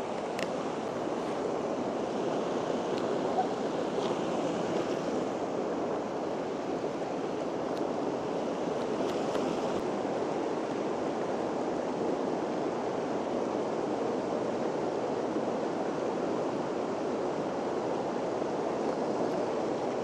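Mountain stream running over rocks and small cascades: a steady, even rush of water.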